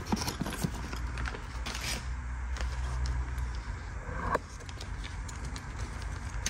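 Light clicks and rustling of plastic-bagged small tools being handled, over a low steady hum, with a single knock about four seconds in.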